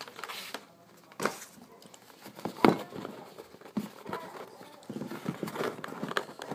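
Boxes and packaging being handled and set down on a table: rustling with irregular knocks, the loudest thump about two and a half seconds in.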